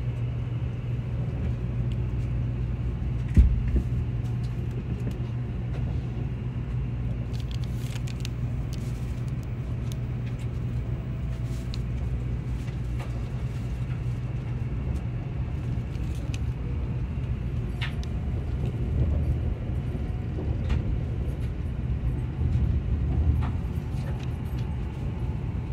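Steady low rumble and hum inside a running Shinkansen bullet train's passenger car, with scattered faint clicks and a single sharp knock about three seconds in.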